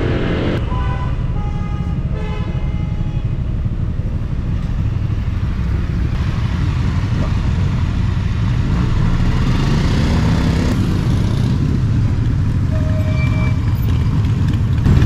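A Honda SH scooter being ridden through city traffic, with steady engine and road noise. A few short horn beeps sound in the first three seconds, and another brief horn sounds near the end.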